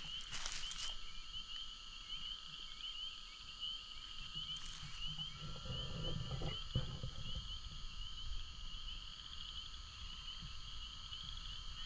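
Chorus of many frogs calling steadily, a dense run of short high calls. A few rustling steps in the first second and a low rumble about six seconds in.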